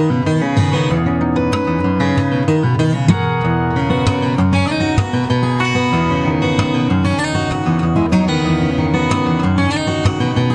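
Instrumental background music led by guitar, playing steadily at an even loudness.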